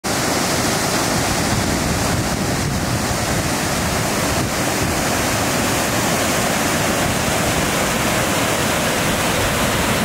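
Öxará river water rushing over boulders in rapids below the Öxarárfoss waterfall: a loud, steady wash of water noise.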